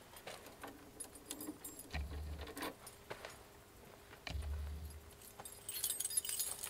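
Small metal objects jangling and clicking, with a denser burst of jingling near the end and two short low rumbles in the middle.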